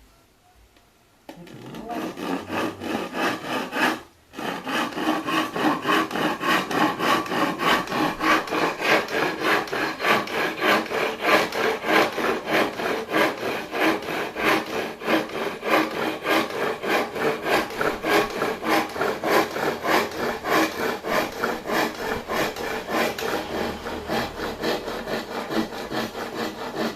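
Hand saw cutting through wood in quick, regular back-and-forth strokes, about two to three a second. It starts a second or so in, breaks off briefly, then saws on steadily.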